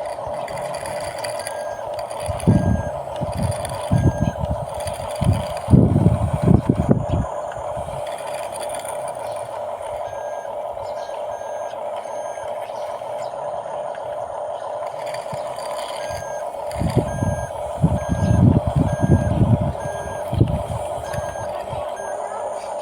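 Small RC bulldozer running with a steady hum. Twice, for a few seconds each, its electronic reversing beeper sounds in even on-off beeps while low rumbling bursts come from the dozer moving and pushing sand.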